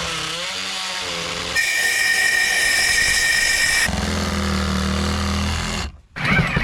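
Power saws running in a few short clips joined by abrupt changes: first a noisy buzz, then a high steady whine about a second and a half in, then a lower motor hum near the end.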